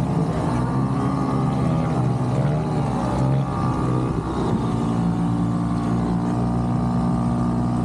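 Motorised bumper boat engines running steadily, their pitch wavering for a couple of seconds in the middle as the boats manoeuvre.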